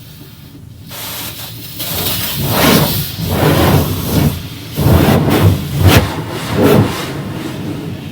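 Water spraying hard against a truck's body during a car wash, in several loud surges from about a second in, then a steadier hiss near the end.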